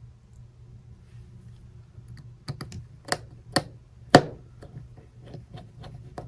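Light, irregular clicks and taps of a small screwdriver and tiny screws against an opened iPhone, starting about two and a half seconds in, the loudest just past four seconds.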